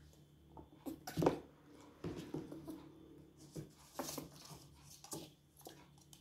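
Terry-cloth towel rustling and rubbing over a wet baby monkey, with scattered short knocks and handling noises; the loudest is a sharp burst about a second in.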